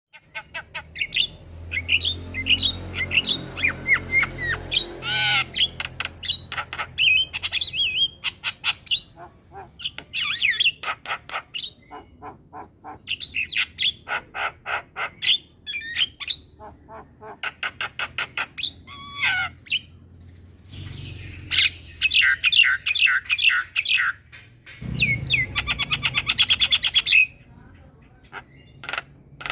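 Javan myna singing a long, varied song: rapid clicking rattles, looping whistles and harsh squawks, in bursts with short pauses between phrases.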